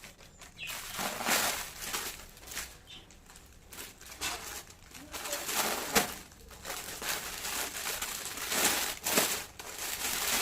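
Plastic packaging and cloth being handled, crinkling and rustling in irregular bursts, loudest about a second in, midway and near the end.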